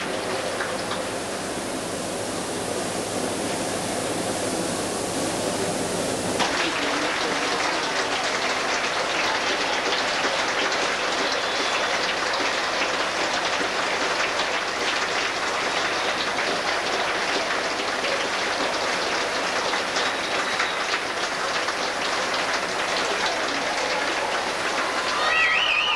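Steady, even background noise of a large indoor arena with a spectator crowd, under old videotape hiss. Near the end comes a brief high, wavering cry.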